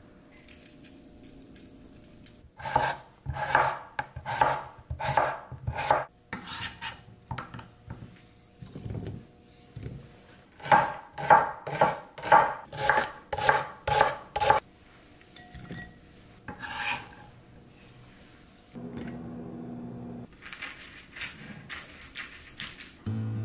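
Kitchen knife chopping on a cutting board in two runs of steady strokes, about two a second, each stroke ringing briefly, with a few scattered knocks in between. A short steady hum comes in about three-quarters of the way through.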